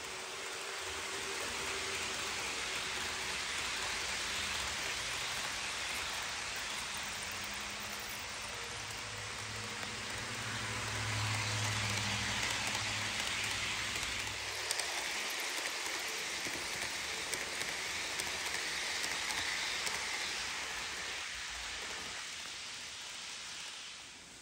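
HO scale model passenger train rolling along the track: a steady rushing hiss of metal wheels on rail. A low hum swells as the train passes closest, about ten to fourteen seconds in, and a few light clicks follow.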